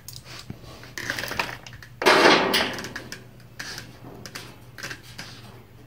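Sheet-metal end cap being handled and worked against a Bronco quarter panel: scattered clicks and light metal knocks, with a loud scrape lasting under a second about two seconds in.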